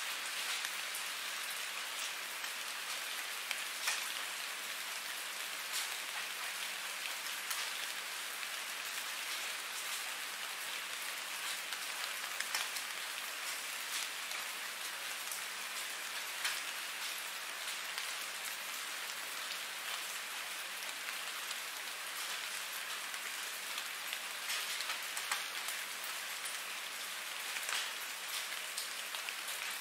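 Steady rain falling: a continuous even hiss with scattered sharp drop taps throughout.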